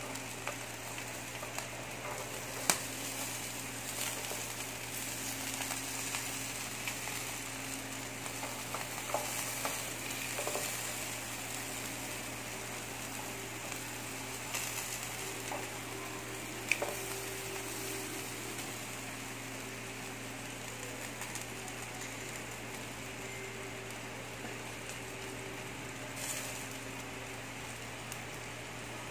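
Chicken quarters sizzling on an electric grill, over a steady low hum. A few sharp clicks stand out, the loudest about three seconds in and again past the middle.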